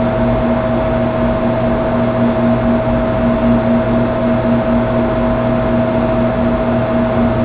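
Loud, steady hum and hiss with a high steady tone over it and a lower tone that pulses a few times a second.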